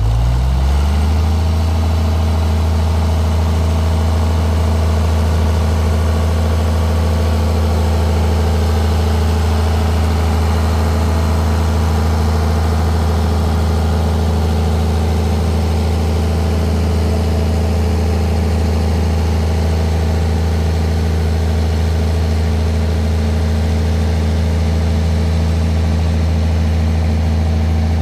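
Farmall 826 tractor engine speeding up about a second in, then running steadily at working speed while pulling a cultimulcher.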